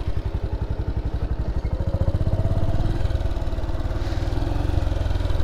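Motorcycle engine running at low revs as the bike rolls slowly, a quick even putter of firing pulses, with a faint higher tone joining about two seconds in.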